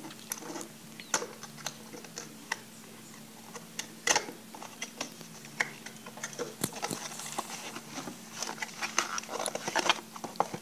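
Packaging being handled during an unboxing: scattered clicks, taps and rustles, with a louder knock about four seconds in and busier rustling near the end. A faint low hum runs underneath.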